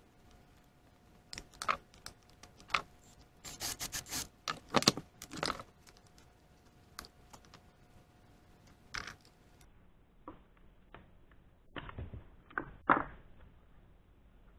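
Irregular clicks, taps and scrapes of hand tools and the plastic and metal parts of a Stihl 029 chainsaw being taken apart at the air filter and carburetor. There is a quick cluster of rattling a few seconds in and two sharper knocks near the end.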